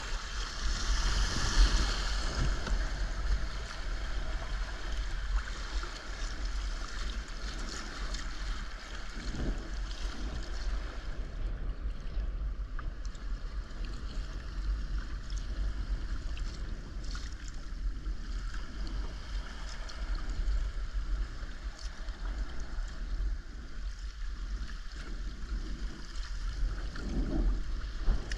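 Sea swell surging and sloshing around rocks beside a sea kayak, loudest in the first couple of seconds as a wave washes over a boulder. A low rumble of wind buffets the microphone throughout.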